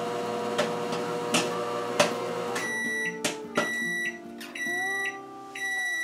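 Microwave oven running with a steady hum, with a few sharp pops from popcorn in the bag. About two and a half seconds in the hum stops, and the microwave beeps about once a second, four times, signalling the end of the cooking cycle.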